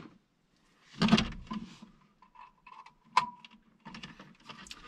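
Plastic rustling and small clicks as the power lead's snap-on connector is handled and plugged into the underside of an Emporia Vue energy monitor, with a brief rustle about a second in and one sharp click about three seconds in.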